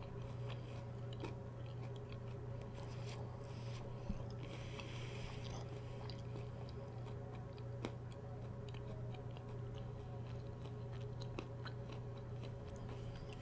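Quiet close-miked chewing of a crunchy fried onion ring with the mouth closed, with faint scattered crunches and mouth clicks over a steady low hum.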